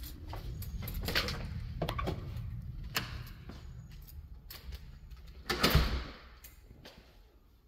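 Key and handle-set latch clicking in a front-door lock and the door opening, followed by footsteps on tile. About five and a half seconds in comes the loudest sound, a brief thud.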